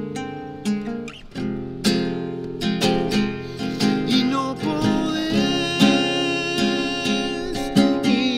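Acoustic guitar playing an instrumental passage of a song, with strummed chords and picked notes; a wavering melody line comes in over the guitar about halfway through.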